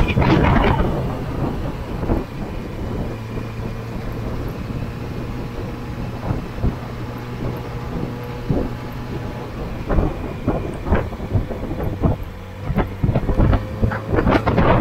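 A high-mileage Yamaha motorcycle's engine running steadily while riding, with gusty wind noise rumbling and crackling on the microphone, strongest near the start and in the last few seconds.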